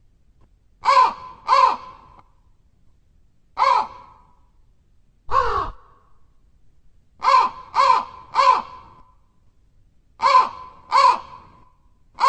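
Crow cawing: short harsh caws in groups of one, two or three, about nine in all, with gaps of a second or two between the groups.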